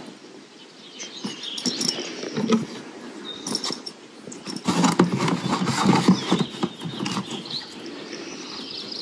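Rustling and knocking of camping gear being lifted and set into leather pannier boxes, busiest about halfway through.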